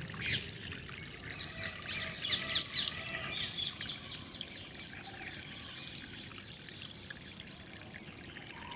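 Flowing water trickling steadily, with many small birds chirping over it; the chirping is busiest in the first few seconds and thins out after.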